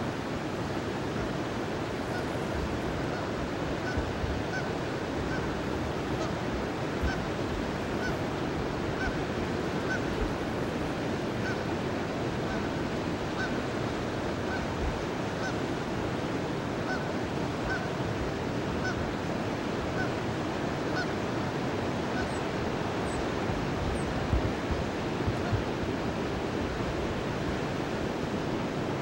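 Steady rush of river water pouring through a dam and its rapids, with geese honking in short calls, about one a second, stopping about three-quarters of the way through.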